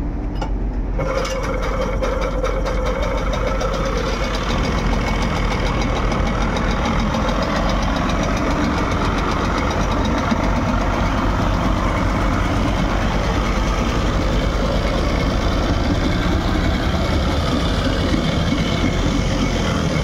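Mercury 25 Sea Pro two-stroke outboard engine running steadily, its lower unit in a water-filled test drum with the propeller churning the water; the engine starts and runs, its carburetor freshly cleaned.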